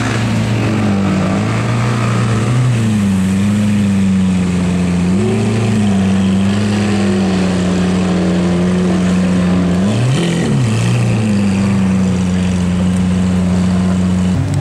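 Lamborghini Aventador SV's 6.5-litre V12 idling, a steady low engine note whose pitch shifts slightly a few times, with a brief wobble about ten seconds in.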